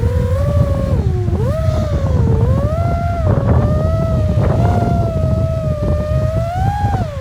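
5-inch FPV freestyle quadcopter with MEPS 2207-1750KV brushless motors flying hard: the motors and propellers whine, their pitch dropping and climbing again and again as the throttle is chopped and punched, over a steady rumble of wind and prop wash.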